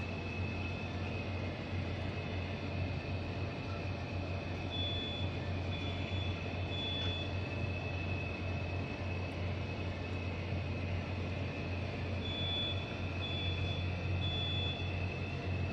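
Steady low hum of an oil tanker's machinery heard inside the wheelhouse, with a thin high whine running under it. A higher-pitched tone comes and goes, about a third of the way in and again near the end.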